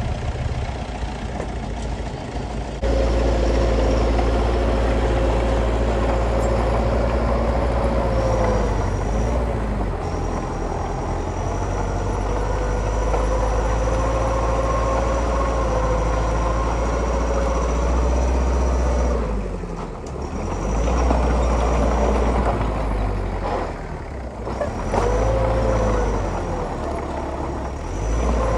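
Heavy diesel construction machine engine running hard, its revs rising and falling as it works. It gets much louder about three seconds in and eases off briefly twice near the end.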